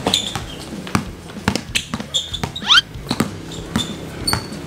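Basketball being dribbled hard, with quick irregular bounces. Sneakers give a couple of short rising squeaks on the court about halfway through.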